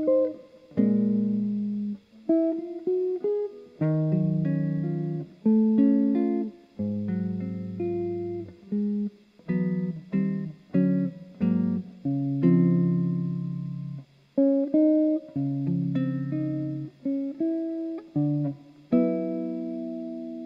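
Solo guitar with a clean tone playing a jazz ballad in chords: chords struck one after another, each ringing and fading. Near the end a final chord is struck and left to ring out.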